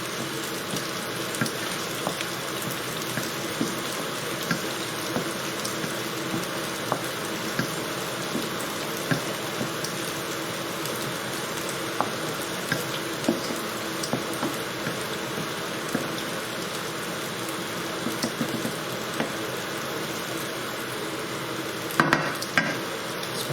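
Chicken pieces frying in oil in a pan with a steady sizzle, and scattered light clicks of a utensil stirring against the pan.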